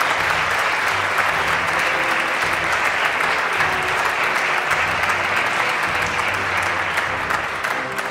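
Theatre audience applauding with steady clapping that eases off slightly near the end.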